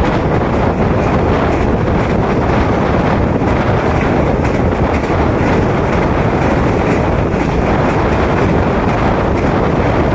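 Passenger express train running at speed, heard from on board: a steady, thunderous rush of wheel and rail noise mixed with wind on the microphone.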